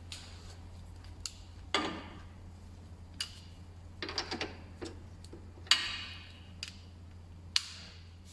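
Metal hand tools clinking and knocking on car parts while a gearbox mount's bolts are being tightened: about eight irregular sharp clinks, some ringing briefly, with the loudest a little past the middle.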